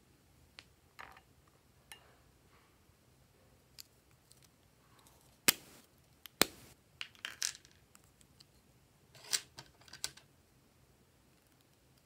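Sharp plastic clicks and taps as lipstick tubes and their caps are handled and opened, with snips of plastic-handled scissors. The two loudest clicks come about halfway through, a second apart, followed by a quick cluster of smaller clicks and two more near the end.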